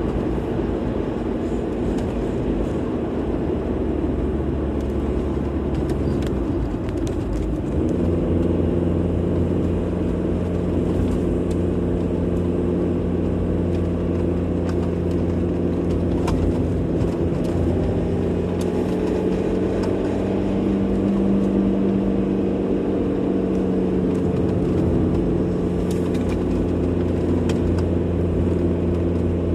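Car driving on the road: steady engine and road rumble, its engine note stepping up about a quarter of the way through and then holding.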